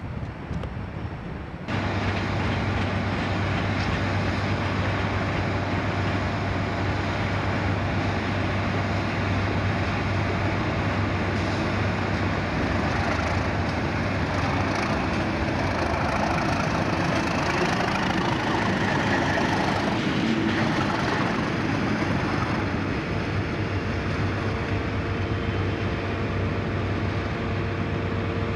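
English Electric Class 37 diesel locomotive running light engine past, its twelve-cylinder diesel running with a steady low hum under the noise of the moving locomotive. The sound comes in abruptly about two seconds in, swells slightly in the middle as it passes, and cuts off suddenly at the end.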